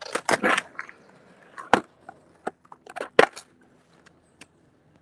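Freestyle skateboard knocking and scraping on rough pavement while tricks such as pogos are practised: a scrape in the first second, then a run of sharp clacks, the two loudest a little under 2 s in and about 3 s in.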